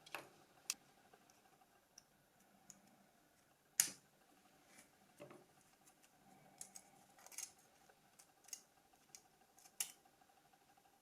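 Scattered small clicks and taps of plastic phone parts being handled and pried at during disassembly of a Nokia 5510, the loudest about four seconds in.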